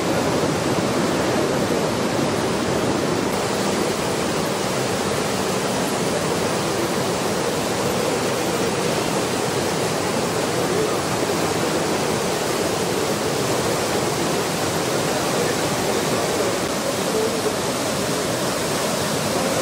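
The Pamba river in heavy flood: a steady rush of fast, churning floodwater.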